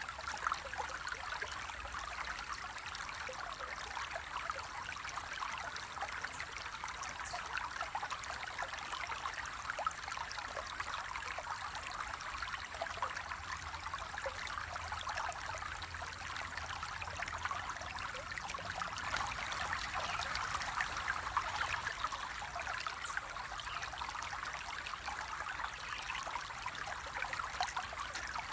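Flowing water running steadily, with a continuous splashing and trickling rush.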